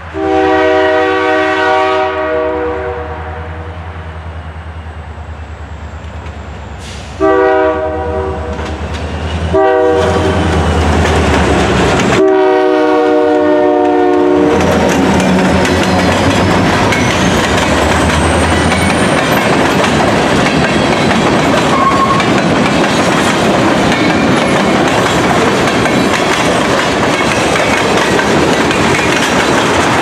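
Air horn of a CN freight train's lead EMD diesel locomotive, a GP38-2W, sounding the grade-crossing signal: long, long, short, long. The locomotives then pass with their diesel engines running, and the freight cars roll by with steady clickety-clack of wheels over the rail joints.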